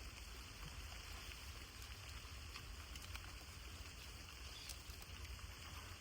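Steady rain falling, an even hiss with a few faint drop ticks, over a low rumble.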